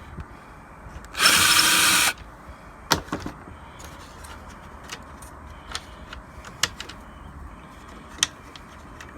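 Power drill running in one burst of just under a second, about a second in, driving out bumper fasteners. Scattered light clicks and knocks of small parts and hardware follow.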